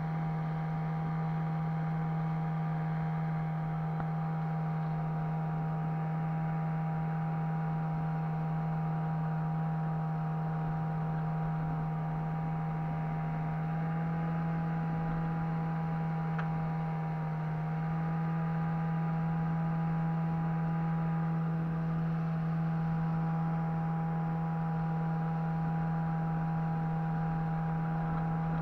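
Boat's outboard motor running at a steady speed, a constant low hum with a few higher tones over it, rising slightly in pitch for a few seconds midway before settling back.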